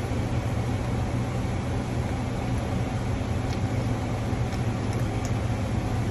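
Steady low hum of restaurant kitchen machinery, with a few faint clicks in the second half.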